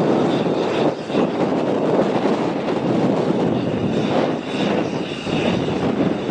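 Airplane engine noise: a loud, steady rush that wavers in level.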